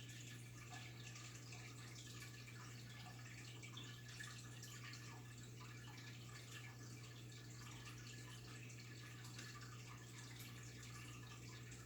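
Faint trickling and dripping of water in a goldfish tank, over a steady low hum.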